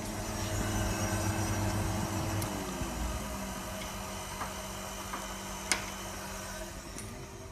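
Steady machine hum that drops in pitch and dies away about two and a half seconds in, followed by a few light clicks, the sharpest about three-quarters of the way through, as the compressor's pressure transducer plug is reconnected.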